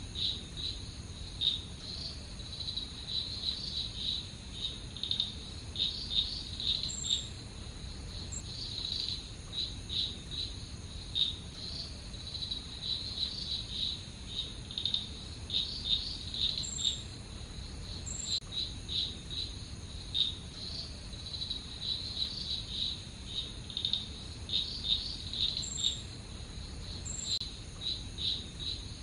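Crickets chirping at night: many short, irregular high chirps over a steady high-pitched insect trill.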